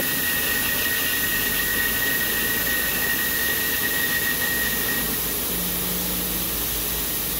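Truck wheel being spun by an on-vehicle wheel balancer: a steady whirring rush with a thin high whine that stops about five seconds in, as the balancing run ends.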